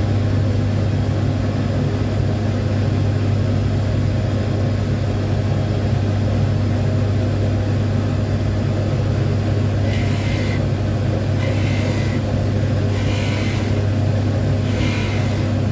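Jewellery polishing machine's motor running with a steady low hum. From about ten seconds in, four short hissing strokes come at the spinning wheel, roughly one every second and a half.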